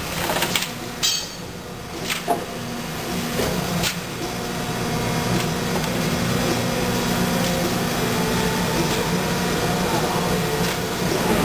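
Injection molding machine opening a stack mold driven by rack and pinion: several sharp metallic knocks in the first four seconds as the mold parts, then the machine's steady hum with a few held tones.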